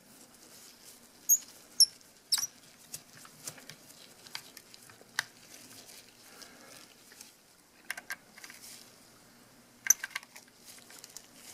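Small screwdriver backing screws out of a camera body's bottom plate: scattered light clicks and ticks of the tip and screws against metal and plastic, with soft handling noise between them. The sharpest clicks come about a second in and again near the end.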